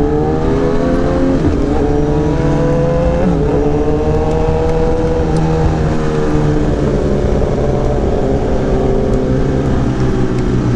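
Kawasaki ZX-10R inline-four through an Arrow racing exhaust, rising in pitch under acceleration with two brief dips, then holding a fairly steady pitch while riding.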